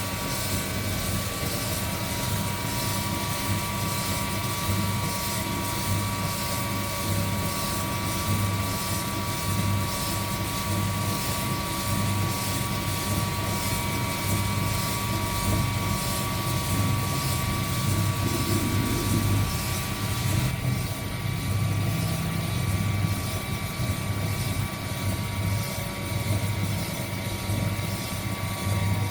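Heat gun blowing hot air over coffee beans in a DIY roaster: a steady fan whir with a faint constant whine and a pulsing low hum. The high hiss drops a little about two-thirds of the way through.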